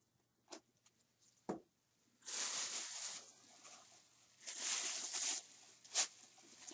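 Two bursts of rustling packaging as presents are handled, with a few light knocks before them and a sharp click near the end.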